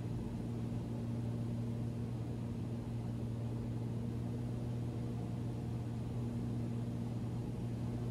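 Cessna Turbo 206's engine and propeller droning steadily in flight, heard in the cockpit as an even low hum.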